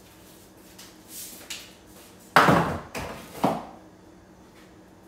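Kitchen knocks and clatter from cooking work at a stove: a few light taps, then three louder knocks between about two and a half and three and a half seconds in, the first the loudest.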